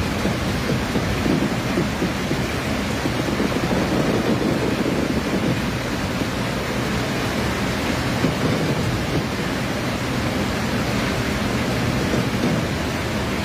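Fireworks display: many aerial shells bursting in quick succession, their booms merging into a steady, loud rumble with no single bang standing out.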